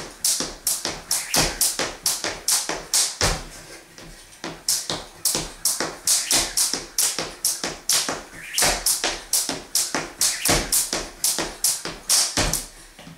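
Jump rope skipping: a thin cable rope slapping a wooden floor on each turn, with sneakers thudding down, about three times a second. A short pause comes about three seconds in.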